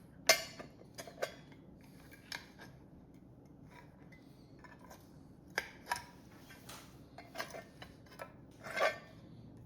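Small metal parts of a sewing machine speed controller clicking and clinking as it is handled and its inner assembly lifted out, with a sharp click just after the start and a short rattle near the end.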